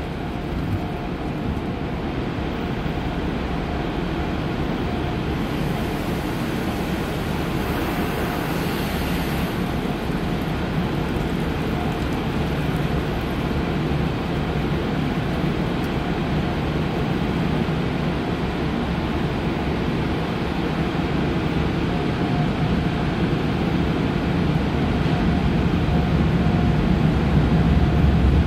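Automatic car wash heard from inside the car: a steady rushing of water spray and wash machinery over the car body, with a low rumble underneath. A brighter hiss of spray rises briefly about six to ten seconds in, and the noise grows louder near the end.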